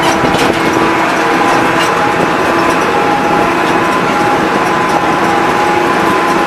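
Tractor engine running steadily, a dense even noise with a faint steady hum through it.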